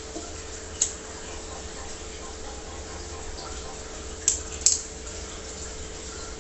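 Aquarium filtration running: a steady trickle of water over a constant low hum. Three sharp clicks cut through it, one about a second in and two close together around four seconds in.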